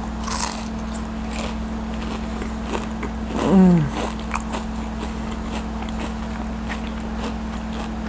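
A crispy, thickly battered onion ring being bitten and chewed close to the microphone, with crisp crunches in the first second or so and softer chewing after. About three and a half seconds in comes a short, falling 'mmm' hum of the voice.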